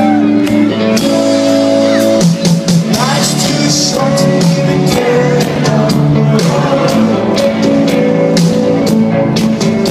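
Rock band playing a song's instrumental opening live: held chords at first, then the drums and full band come in with a steady beat about two seconds in.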